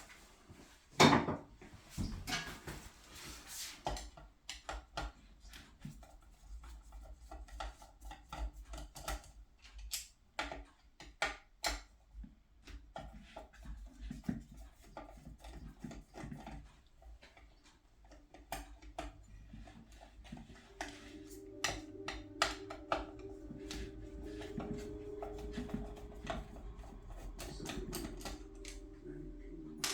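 Tools and metal parts clicking and clattering as a boiler is worked on, with one louder knock about a second in. A steady hum with a few pitched tones starts about twenty seconds in.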